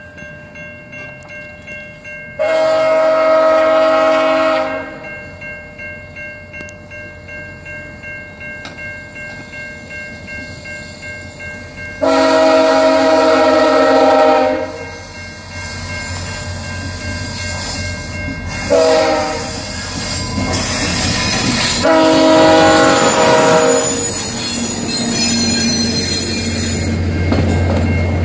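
VIA Rail passenger train's locomotive horn blowing the long-long-short-long grade-crossing signal on its approach, over a level-crossing bell ringing steadily. Near the end the locomotive and passenger cars pass close by with a growing low rumble and wheel clatter.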